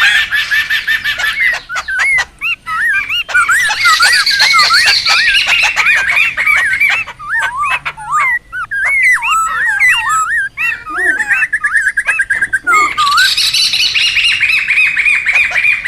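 Laughingthrushes (poksay) calling noisily. Harsh, rapid chattering near the start and again near the end frames a run of looping, whistled notes in the middle, with a fast even trill a little past two-thirds of the way through.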